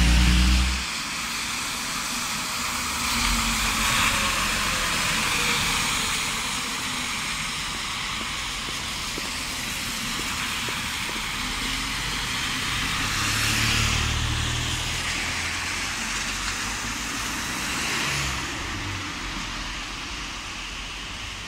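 Road traffic on rain-wet streets: a steady hiss of tyres on wet asphalt with the low hum of passing buses and cars, which swells about two thirds of the way through. A loud, close engine rumble cuts off about a second in.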